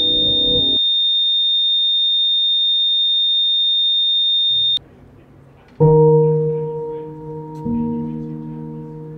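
Film sound design: a steady high-pitched ringing tone, over a low held chord that stops within the first second, cuts off abruptly about five seconds in. After a short low rumble, deep sustained musical chords sound and slowly fade, with a new tone entering near the end.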